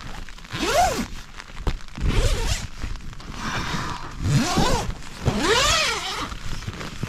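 Tent door zipper being worked open in about four separate pulls, each a rasp that rises and then falls in pitch.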